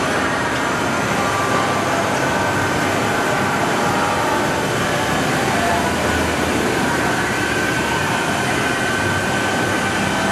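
Johnford DMC-3000 gantry-type vertical machining center running a program on a dry run: a steady mechanical noise with a thin whine that grows stronger about four seconds in, in a loud machine shop.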